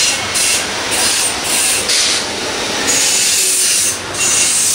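Busy street traffic noise: a continuous rumble with repeated bursts of high hiss coming and going every second or so.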